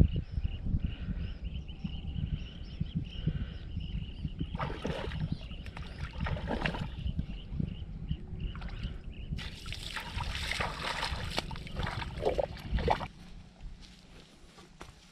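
Water sloshing and splashing in uneven bursts, dying down near the end.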